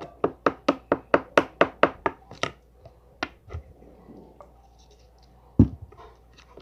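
A spoon clacking against a bowl in quick, even strokes, about four to five a second, as slime is stirred after soap is added; the strokes stop after about two and a half seconds. One heavy thump near the end.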